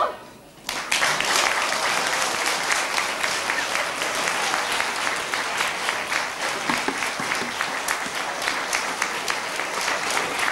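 An accordion tune ends; after a pause of under a second an audience breaks into applause, which keeps up steadily.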